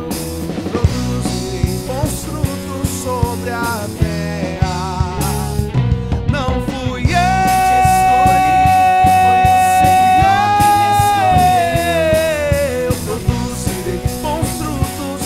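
Rock band playing live: electric guitar, electric bass, drums and keyboard with singing. About halfway through, a voice holds one long note for several seconds that lifts slightly and then slides down.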